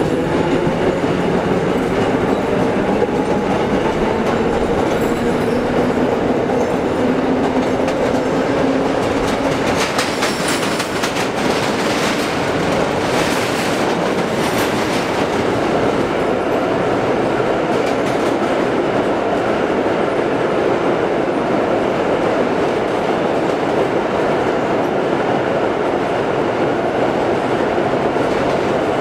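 A vintage 1930s R1–R9 New York subway train running out of a station and through the tunnel: a steady rumble of the cars on the rails, with a hum in the first several seconds. About ten to fifteen seconds in, the wheels clatter over rail joints.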